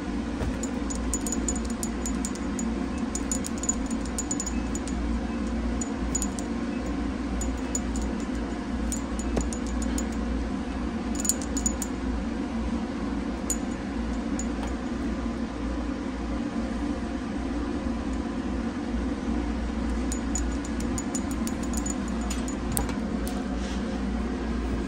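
Light jingling and clicking in short clusters, as a cat in a wire shelter cage plays with a string wand toy and is petted, over a steady low hum.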